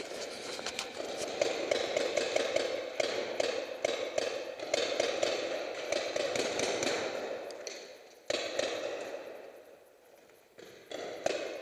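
Rapid paintball marker fire: long strings of quick shots and impacts that die away between about eight and ten seconds in, then start again with a few sharp shots near the end.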